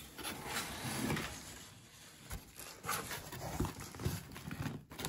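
Cardboard shipping box with a foam-insulated liner being opened by hand: flaps pulled back and handled, with irregular rustling and scraping and a few sharp knocks.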